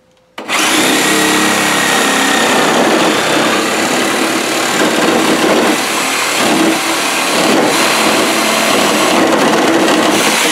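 Reciprocating saw cutting through a large PVC pipe in one continuous, loud cut, starting about half a second in.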